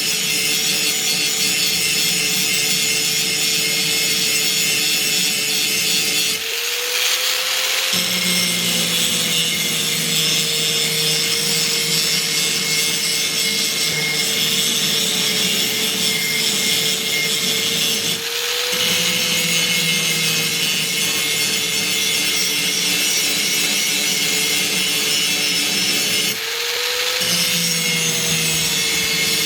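Power grinder sharpening a steel axe blade: steady grinding over the motor's hum. Three times the motor's pitch rises briefly as the blade comes off the wheel, then settles again under load.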